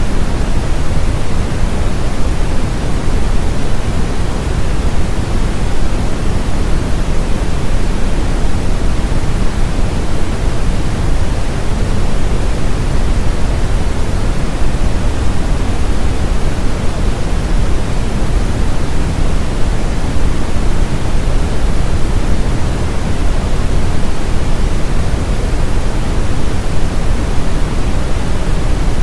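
Steady brown noise: a continuous, even hiss weighted heavily toward the low end, with no change in level or pattern.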